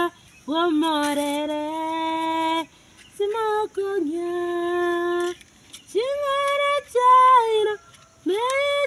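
A woman's voice singing unaccompanied in long held notes of about two seconds each. Most notes scoop up in pitch at the start, with short breaths between phrases.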